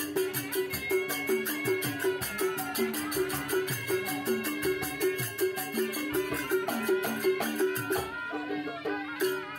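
Music with a quick, steady percussion beat and sustained melody lines.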